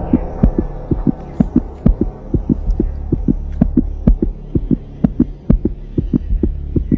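A deep, heartbeat-like thumping beat, about three to four thumps a second, over a steady low hum: a pulsing background soundtrack.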